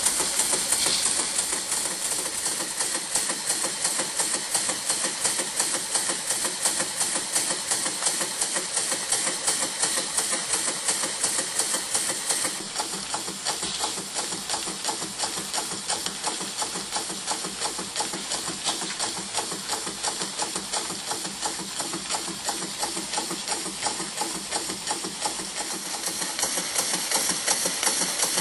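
Bio-Fiz model steam engine running steadily, with a fast, even beat of exhaust and mechanical clatter as it drives a small dynamo. It gets somewhat quieter about twelve seconds in and louder again near the end.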